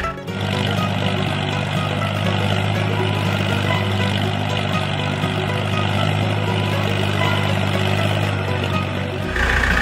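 Engine running steadily at an even pitch. It cuts in abruptly at the start and changes abruptly to a deeper engine sound near the end.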